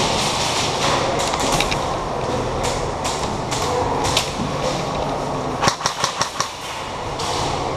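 Airsoft gunfire: scattered single shots, then a quick string of about six shots around six seconds in, over a steady hum.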